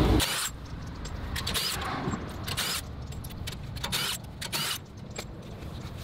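Irregular metallic clinks and knocks from taking the rear wheel off a BMW E90: the wheel bolts being unscrewed and the wheel lifted away from the hub.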